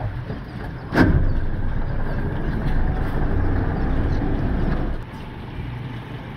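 Tour boat's motor running with a steady low rumble. There is a sharp knock about a second in, after which the rumble is louder, and it drops back again near the end.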